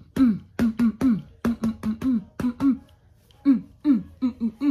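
A voice making a rapid, rhythmic run of short wordless syllables, about three a second, each dropping in pitch.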